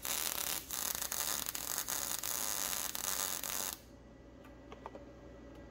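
MIG welding arc from a YesWelder Firstess MP200 laying a bead on 14-gauge mild steel: a steady dense crackle with irregular pops. The crackle cuts off abruptly a little under four seconds in as the arc stops, and a faint steady hum remains.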